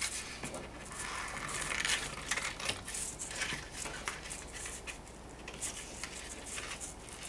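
Scissors cutting through a sheet of scrapbook paper, an irregular run of short snips with the paper rustling.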